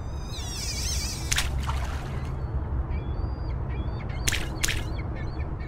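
Sound design for an animated logo intro: a steady low rumble with a wavering bird call near the start and a few small chirps. A few sharp swishes cut through, one about a second and a half in and two more near the end.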